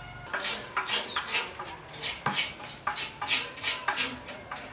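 Repeated hand scraping strokes on a metal part, about three a second, starting shortly after the beginning and settling into an even rhythm.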